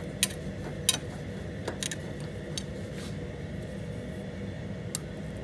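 A few short metallic clicks and taps as the squaring shear's back-gauge stop bar is cranked along its scale, over a steady low hum.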